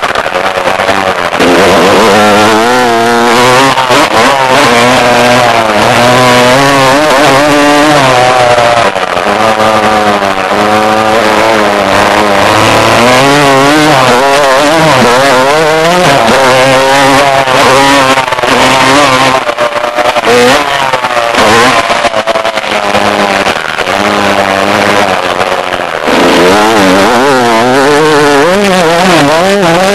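Dirt bike engine heard from a camera mounted on the bike, revving up and falling back again and again as the rider accelerates, shifts and rolls off the throttle, over a loud rushing noise.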